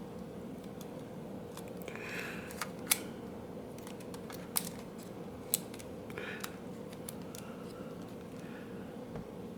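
Sharp plastic clicks and light handling ticks from a compact digital camera being fitted with its battery and switched on, three clicks louder than the rest, over a faint steady hum.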